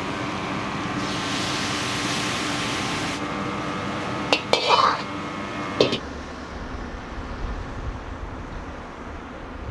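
Busy kitchen noise: a steady hum with a sizzling hiss, and a handful of sharp metal clinks of a utensil against a wok about four and a half to six seconds in. It then cuts abruptly to a low, dull rumble.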